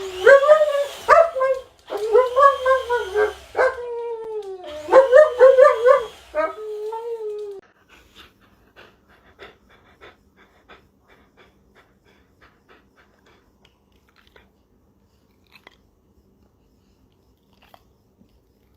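A dog whining in a run of long, wavering cries that rise and fall in pitch for about seven and a half seconds, then stops, leaving only faint scattered ticks.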